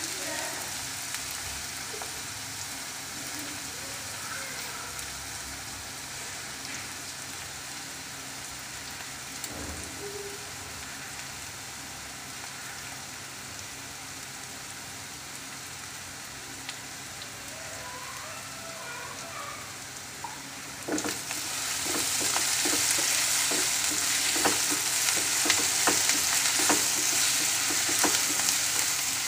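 Chopped onions sizzling in oil in a non-stick pan, a steady hiss. About twenty seconds in the sizzle grows louder, and a wooden spatula scrapes and taps against the pan as the onions are stirred.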